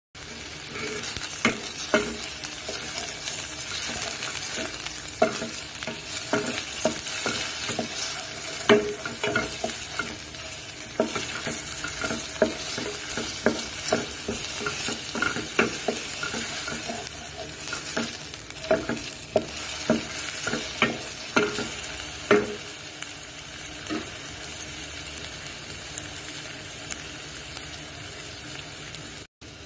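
Sliced onions sizzling in oil in a stainless steel pot, stirred with a wooden spoon that knocks against the pot in frequent sharp taps. The taps thin out after about twenty-four seconds while the sizzle goes on.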